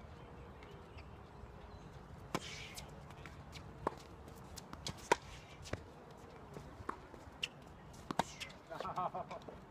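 Tennis rally on a hard court: several sharp pops of racket strings hitting the ball and the ball bouncing, a second or so apart, with a brief voice call near the end.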